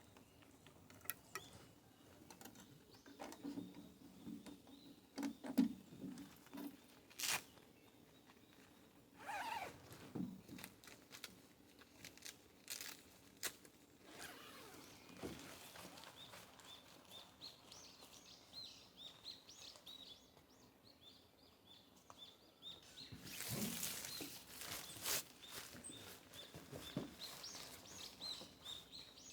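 Small birds chirping in a forest, a quick run of short repeated chirps through the second half. Scattered clicks, knocks and rustles are heard throughout, with a louder rustling stretch a little past the middle.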